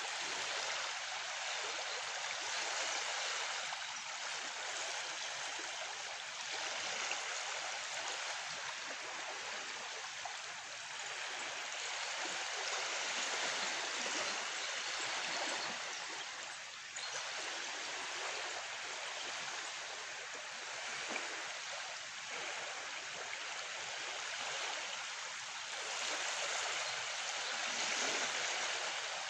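River water flowing steadily, a rushing hiss that swells and eases every few seconds.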